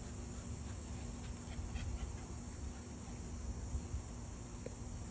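Steady outdoor insect chorus, a continuous high-pitched buzz of crickets.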